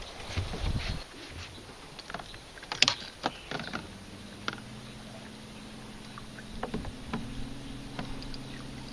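A few knocks and clicks of handling aboard a small boat, then about four seconds in a boat motor sets up a steady low hum that keeps running.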